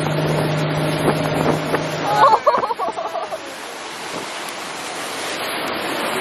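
Motorboat engine running at a steady pitch, cutting off about two seconds in, just as a person gives a short shout. Wind on the microphone and water noise follow.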